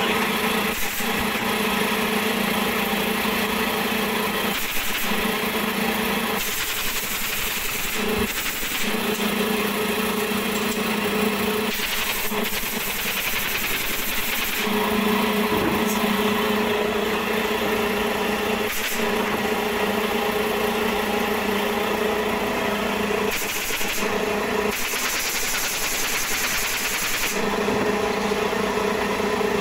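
Air compressor running steadily with a constant hum, supplying a pneumatic stapler, with a few sharp clicks from the stapler.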